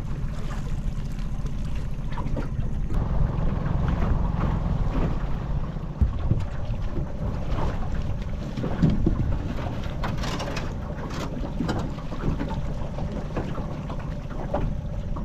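A wire crab pot hauled up by rope beside an aluminium dinghy: water splashing and dripping, with scattered knocks and rattles, over a steady low rumble of wind on the microphone.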